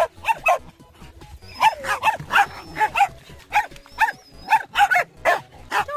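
Dogs barking over and over in short, high barks, about two a second, as they play in a muddy puddle.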